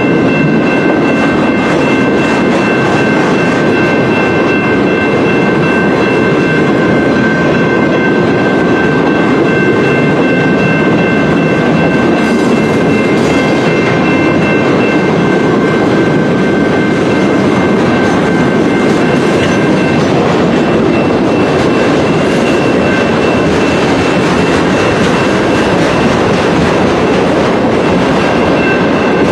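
Freight train cars rolling past, a steady loud rumble of wheels on rail with clickety-clack, and a few thin steady high-pitched tones over it.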